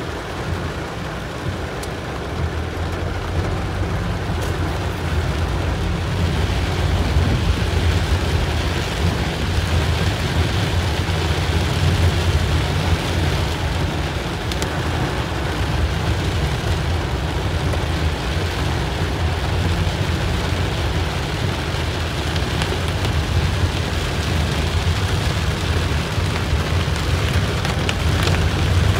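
Heavy rain falling on a car's roof and windshield, heard from inside the moving car, over the car's steady low rumble on the wet road.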